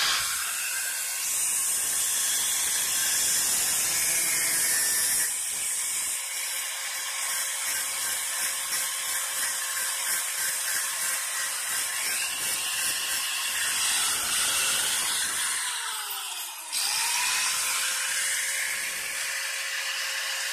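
Electric angle grinder running at full speed and cutting off the protruding steel tips of self-tapping screws, with a steady high whine. About sixteen seconds in the motor winds down briefly, then spins back up and carries on cutting.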